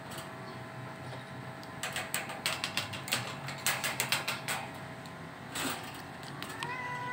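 A cat scratching and shifting in a litter box inside a wire cage: a quick run of scratchy clicks and rattles, with a smaller burst a little later. Near the end the cat starts a long, level meow.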